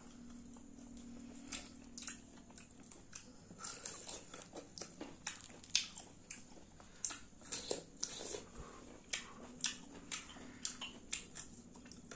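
Close-up eating sounds of a person chewing green mussels in sauce: wet mouth smacks and irregular sharp clicks, several a second.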